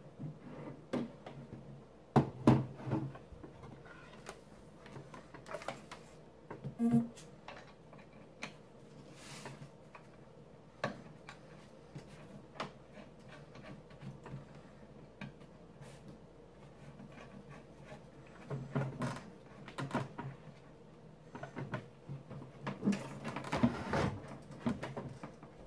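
Handling noises of cables being connected and a small plastic electronics box being set on top of a TV cabinet: scattered clicks, knocks and rattles. They come in clusters, the loudest about two seconds in and more near the end.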